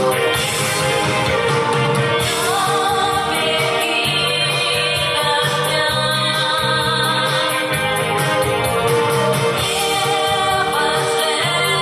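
A song: a sung vocal melody over instrumental accompaniment with a steady, regular beat.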